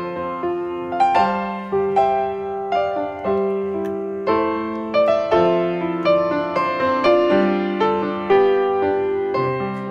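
Background music: a gentle piano tune, its notes struck one after another and left to die away.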